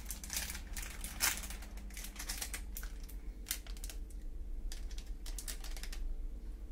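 Small plastic spice sachet being bitten and torn open by hand: a quick run of crackling tears and crinkles that stops about six seconds in.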